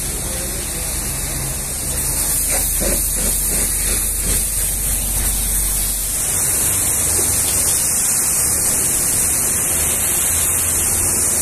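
Pressure-washer jet spraying water against a truck trailer's side panel: a steady hiss. A low hum underneath drops out about halfway through.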